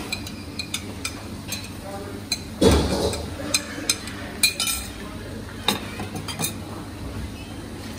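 Metal spoon and steel ladle clinking against a bowl and a wok as sautéed beef is scraped from the bowl into the gravy and stirred, with one heavier, louder thud about two and a half seconds in as the meat drops into the wok. A low steady hum runs underneath.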